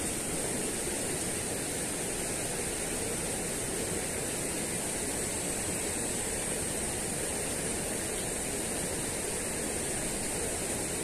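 Steady rushing of a small river flowing over rocks, with a steady high hiss over it.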